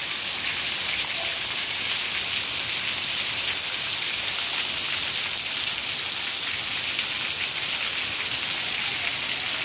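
Heavy downpour: a steady hiss of torrential rain, with water pouring off the roof edge close by.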